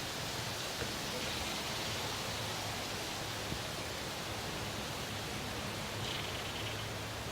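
Steady rush of a waterfall's falling water, an even hiss that holds level throughout.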